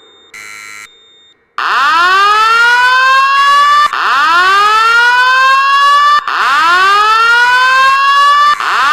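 Fire alarm voice-evacuation system sounding its slow whoop tone: loud rising electronic sweeps, each climbing quickly and then levelling off, repeating about every two and a half seconds. A short buzz comes under half a second in, before the sweeps start.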